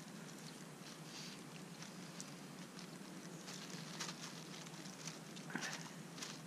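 Faint close-up rustling and scattered light ticks, with two louder rustles near the end.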